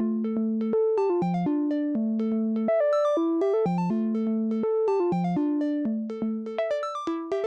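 Behringer SY-1 Syncussion, a two-voice analog drum synthesizer, playing a sequenced pattern of pitched synth tones, dry with no effects. Notes change pitch several times a second, with a low line and a higher line sounding together.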